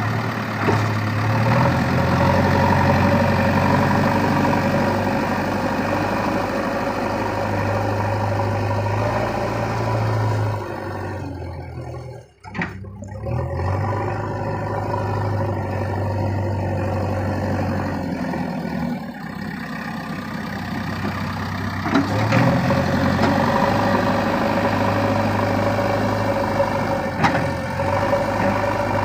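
Diesel engine of a backhoe loader running steadily, its speed rising and falling a few times. About halfway through the sound breaks off briefly with a click.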